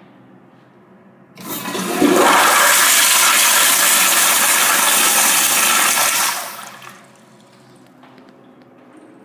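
Commercial toilet on a chrome flushometer valve flushing: a sudden loud rush of water begins about a second and a half in, holds steady for about five seconds, then dies away quickly.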